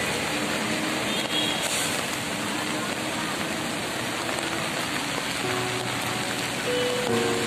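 Steady hiss of heavy rain falling on a flooded road, with faint music notes drifting over it, more of them near the end.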